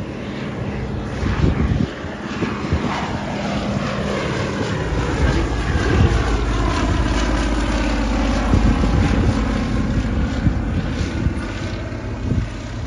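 Fairey Swordfish Mk.I biplane's nine-cylinder Bristol Pegasus radial engine and propeller flying past, a steady drone whose note falls as the aircraft goes by.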